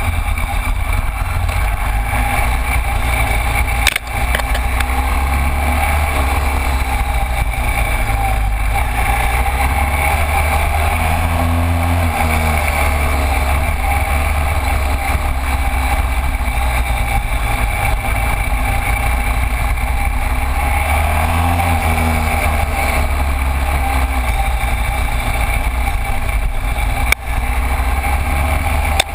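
Cagiva Elefant 900's Ducati V-twin engine running at low speed under a heavy low rumble, its pitch rising and falling a few times as the throttle is worked. The sound briefly drops out about four seconds in and again near the end.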